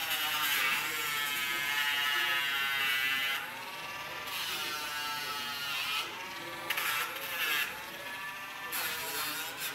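Nail Dremel (small rotary nail grinder) running with a buzzing whine as it files a dog's nails, louder for about the first three seconds and then quieter.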